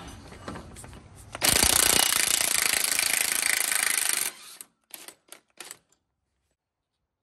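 Impact wrench hammering off the rear axle shaft nut: one loud run of about three seconds starting a second and a half in, then three short blips.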